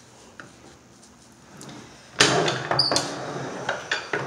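Faint for about two seconds, then a tortilla press being handled and its hinged lid worked open: loud clattering and scraping with sharp clicks.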